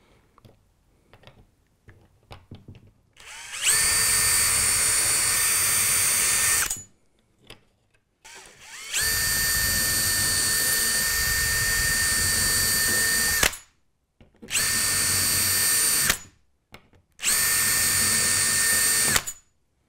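Cordless drill running in four separate bursts with a steady whine, each starting and stopping sharply, as four holes are drilled through a Tortoise point-motor guide plate into the wooden baseboard; the second run is the longest. A few light handling clicks come before the first.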